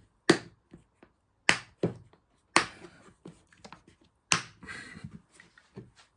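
Clear plastic clip-lock container being handled and its lid pressed shut: about five sharp plastic clicks and taps spread over a few seconds, with fainter ticks between them.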